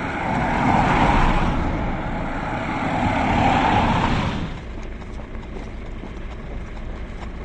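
A car driving past close by on a wet road, its tyre and engine noise swelling at once and fading away after about four and a half seconds, leaving a quieter low rumble.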